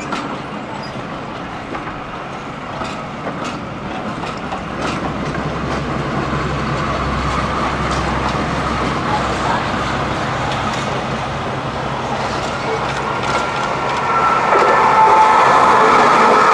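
Train of coaches drawn slowly into a platform by a Class 52 Western diesel-hydraulic locomotive: wheel clicks over rail joints, then the locomotive's low engine rumble growing as it comes nearer. About fourteen seconds in it all grows louder as a Class 196 diesel multiple unit passes on the adjacent line, adding a steady whine.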